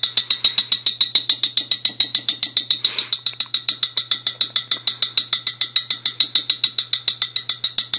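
A quarter rubbed rapidly back and forth against the glass neck of a beer bottle, making a fast, even clicking of about nine clicks a second.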